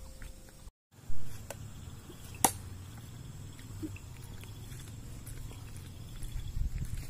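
A sharp single knock about two and a half seconds in: a thrown blade striking a wooden stump target. A dull thump comes just after a second in, over a steady low rumble.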